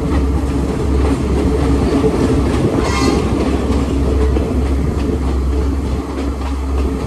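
Sri Lankan passenger train heard from inside the carriage while running: a steady low rumble of wheels on rails with faint clicking over the rail joints. A brief high-pitched tone sounds about three seconds in.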